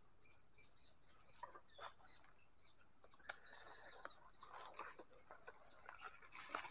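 Faint, rapid high-pitched animal chirps repeating several times a second, with rustling and small crackles in dry leaf litter from about a second and a half in, growing denser near the end.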